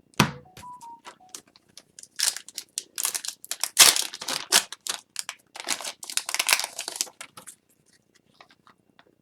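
Foil wrapper of an Upper Deck Series 1 hockey card pack being torn open and crinkled, a dense irregular crackling for about five seconds that stops before the end. Near the start there is a sharp click and a few short steady tones.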